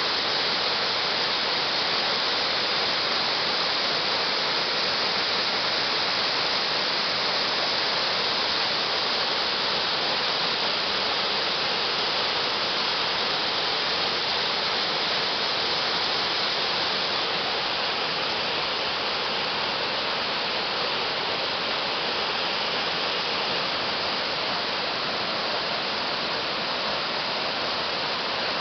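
Amagiri Falls waterfall: a steady, unbroken rush of falling water, heaviest in its high hiss.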